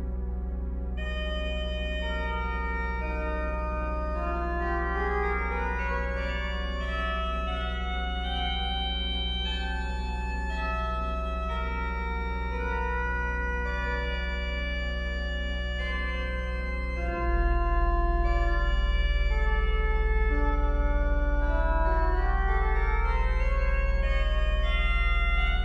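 1997 Kreisz pipe organ playing: low pedal notes held underneath while runs of higher notes climb and fall above them. About 17 seconds in, a new bass chord enters and the organ grows louder.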